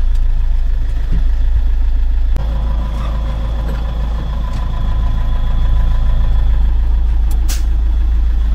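MB-trac tractor's diesel engine running steadily, with a sharp click about two and a half seconds in.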